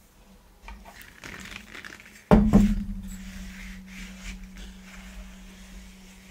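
A stainless steel vessel set down on the table with a sharp metallic clank about two seconds in, leaving a low ring that slowly fades; light knocks and handling of dishes before it.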